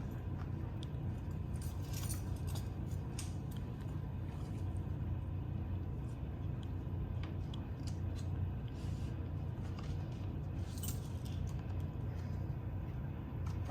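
Steady low hum with scattered light clicks and jingles.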